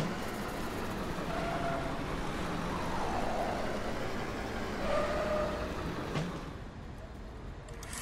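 Cartoon sound effect of a small vehicle driving: steady engine and road noise, with a few short tones over it, one falling in pitch about three seconds in.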